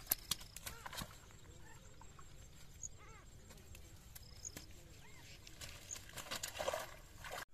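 Tilapia being worked free of a wet nylon cast net and put into a bag: a few sharp taps in the first second, soft rustling of net and reeds, and a louder rustle near the end as the bag is handled.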